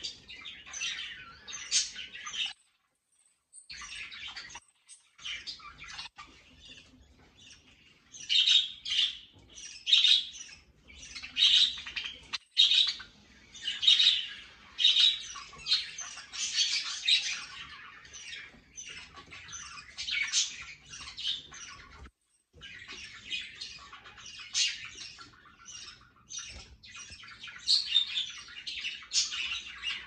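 A flock of budgerigars chattering and chirping, a dense stream of short high calls with louder clusters. It drops out briefly twice, a few seconds in and about two-thirds of the way through.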